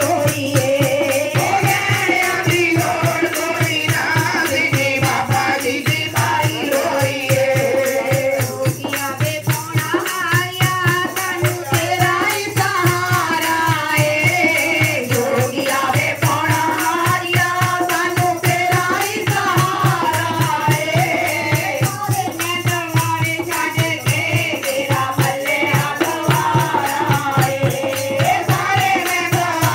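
Group of women singing a Punjabi devotional bhajan into microphones, backed by a dholak played with the hands in a fast, steady rhythm, with a jingling rattle on every beat.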